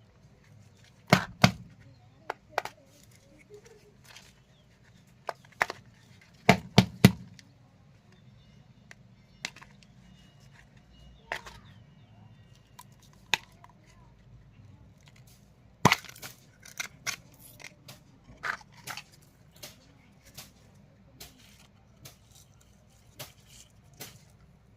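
Irregular sharp clicks and knocks from handling and working on a small desert-cooler water pump, several in quick clusters, over a faint low hum.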